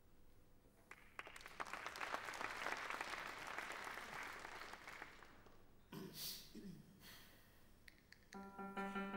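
Audience applauding for a few seconds, then dying away. Near the end a steady held note with several overtones begins.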